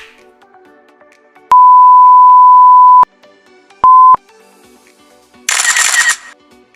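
Censor bleep sound effect: a loud, steady pure-tone bleep lasting about a second and a half, then a second short bleep at the same pitch. A brief burst of hiss-like noise follows near the end, with faint background music underneath.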